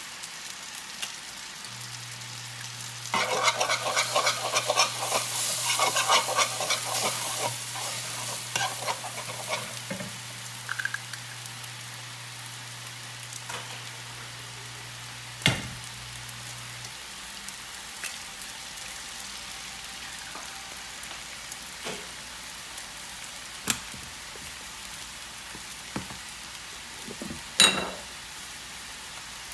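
Eggs hitting hot melted butter in a frying pan: a loud crackling sizzle starts suddenly about three seconds in and dies down after several seconds, then the eggs fry quietly while a metal spoon stirs them. A few sharp knocks follow in the second half.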